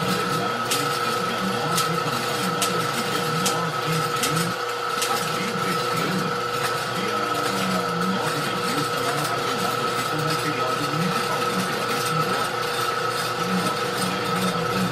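Homemade envelope-gluing machine running steadily, its chain-and-sprocket drive and belt rollers feeding envelopes through, with a steady whine over a constant mechanical rattle.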